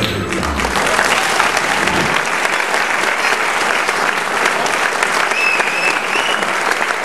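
Audience applauding, with the tail of the stage music fading out in the first two seconds.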